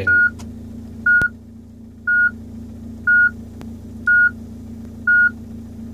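Citroën Berlingo's factory radio sounding its warning beep: short, even, high beeps about once a second, six in all, then it stops. It is the beep the radio keeps up after the battery power has been cut, cleared by holding menu and both volume buttons. A steady low hum runs underneath.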